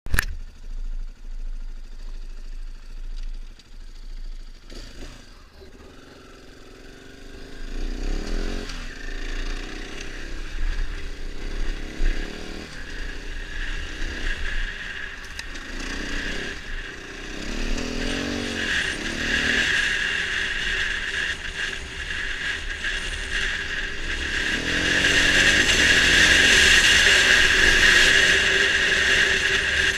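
Dirt bike engine under way, revving up in rising surges about 8, 18 and 25 seconds in as the bike accelerates. It is quieter in the first few seconds and loudest near the end.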